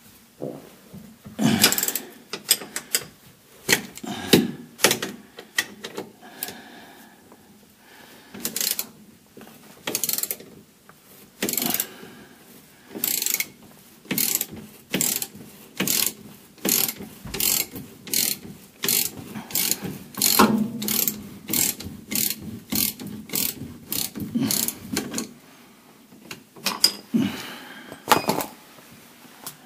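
Hand ratchet wrench clicking in repeated short strokes, loosening a shock absorber mounting nut; the clicks pause briefly near the end, then a few more follow.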